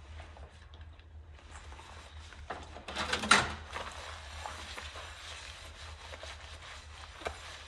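Sponge scrubbing a ceramic dinner plate in a sink of soapy water, with rubber-gloved hands swishing through the suds and small clicks of the plate against the sink. About three seconds in comes a brief, louder splash as the plate is lifted and turned in the water.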